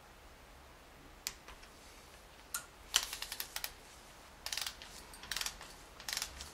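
Hand ratchet clicking as the bolts of a new upper timing chain tensioner are tightened down: a couple of single clicks, then four short bursts of rapid ticks.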